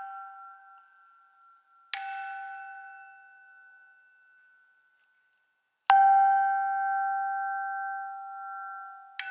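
A bell-like piece of metal struck three times, about every four seconds: each strike rings on in the same clear, steady tones and slowly fades. The second strike, about six seconds in, is the loudest, and the ring of an earlier strike is dying away at the start.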